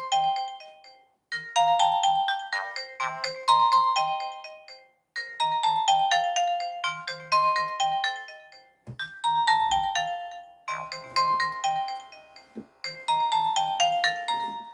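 Nokia 100 mobile phone playing a polyphonic ringtone: a short, bright melody of quick notes, repeated every few seconds with brief gaps between the phrases.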